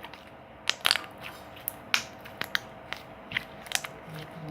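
Slime being squeezed and worked by hand, giving irregular sharp clicks and pops as air bubbles trapped in it burst.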